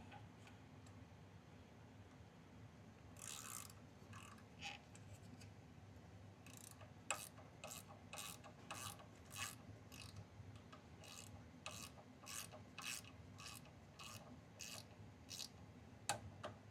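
Faint clicking of a hand ratchet worked in short strokes, about two clicks a second from about six seconds in, tightening a small bolt. It follows a brief scraping rub of metal parts a few seconds earlier.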